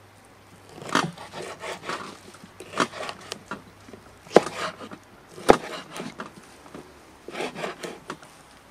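Kitchen knife slicing raw lamb fat on a wooden cutting board. Several sharp knocks at irregular intervals as the blade meets the board, with soft scraping and rubbing between the cuts.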